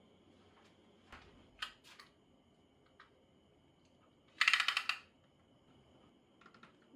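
Light clicks and taps of small objects being handled, with a brief rapid rattle about halfway through.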